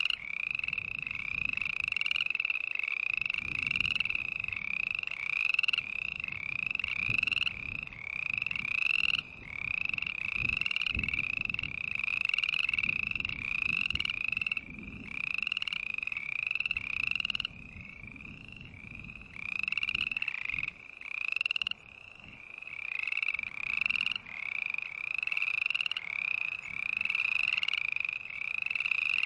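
Frogs croaking: a fast, steady string of short rising calls, about two a second, quieter for a few seconds past the middle.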